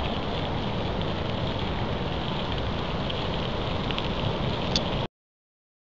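Steady rushing of water pouring over a river weir, mixed with wind buffeting the microphone; it cuts off suddenly about five seconds in.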